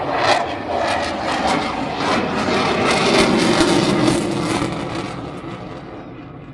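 Jet aircraft flying past with a loud, steady rushing roar that fades away over the last second or two as it moves off.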